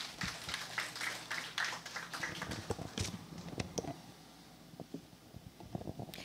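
Quiet room tone with scattered light taps and clicks, thinning out to near quiet after about four seconds.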